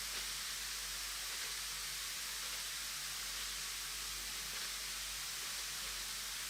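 Steady fizzing hiss of a large bath bomb dissolving in water.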